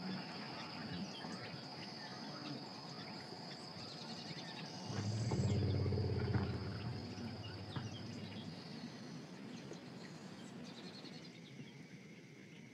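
Evening natural ambience: insects chirping in a steady high drone over a background hiss. About five seconds in, a louder low sound lasts for a second or two. Near the end a lower steady chirring takes over.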